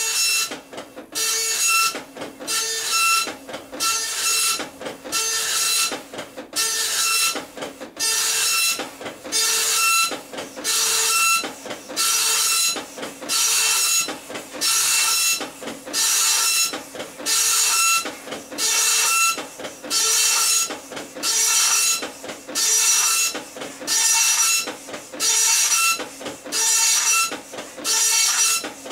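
Dot matrix printer printing, its print head making one loud pass after another, about one a second, with short pauses between. Each pass carries a high whining tone that makes it sound like a goat bleating.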